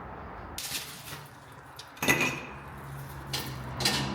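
Metal clanks and knocks from steel plow-mount pins and hardware being worked loose, four separate hits, the loudest about two seconds in with a short metallic ring. A low steady hum starts with that loudest clank.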